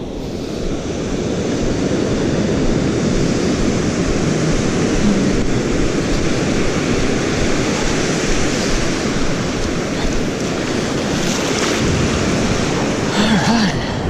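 Ocean surf washing up the beach with wind on the microphone: a steady rush of noise that swells over the first second or two and then holds.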